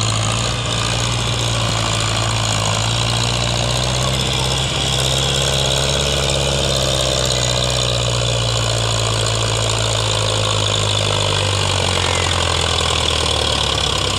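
Belarus MTZ tractor's diesel engine running steadily under load as it hauls a trailer heaped with soil, its pitch shifting slightly near the end.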